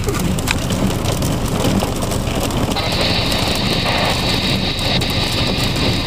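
Heavy rain mixed with small hail beating down on a car and the pavement around it, heard from inside the car, over a steady low rumble. A higher hiss swells in about three seconds in.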